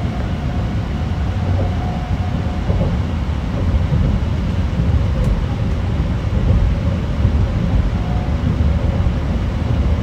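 N700S Shinkansen train running, a steady low rumble heard from inside the passenger car.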